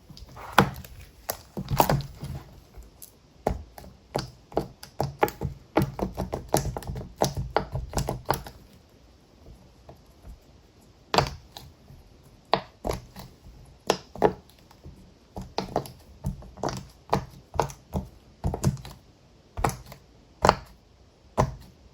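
Quick, irregular clicks and pops from fingers pressing the bubbles of a keyboard-shaped silicone push-pop fidget toy, with a pause of about two seconds near the middle.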